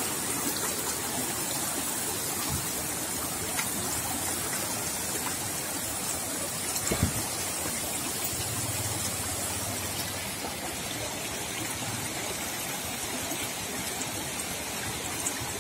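Stream water rushing steadily over rocks, an even wash of noise, with one sharp knock about seven seconds in.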